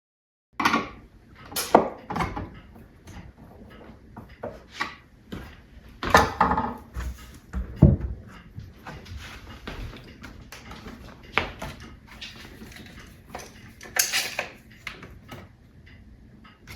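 Kitchen cabinet door being adjusted on its hinges: scattered knocks, clicks and short scrapes as the hinge screws are loosened and the door is shifted to sit level.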